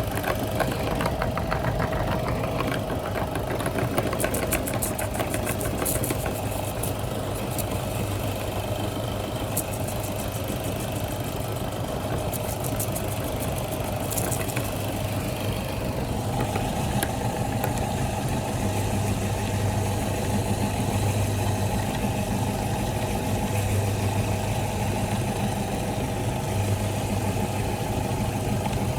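Electric meat grinder running steadily with a motor hum, with crackling clicks during the first half.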